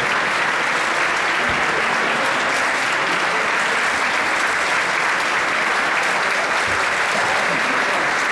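Large crowd applauding steadily, with no break in the clapping.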